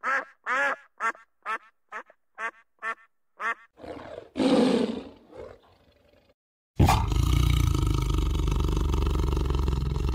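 A duck quacking in a quick series of about nine quacks, roughly three a second. A few seconds in, it gives way to a large animal's calls: a short, harsh call, then from about two-thirds of the way through a long, loud, deep, steady call that runs on past the end.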